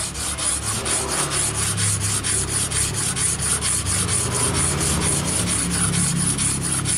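A hard steel dowel-machine cutter blade being honed by hand on a wet whetstone: a steady rasping of quick, even back-and-forth strokes, several a second.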